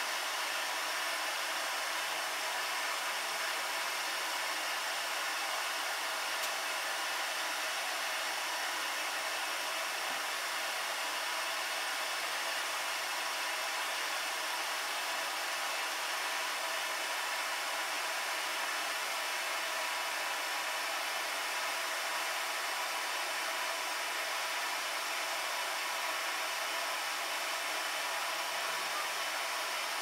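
Vacuum cleaner running with a steady, even rushing hiss.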